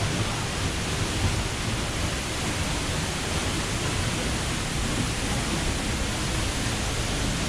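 Waterfall: a steady rush of falling water with no change in level.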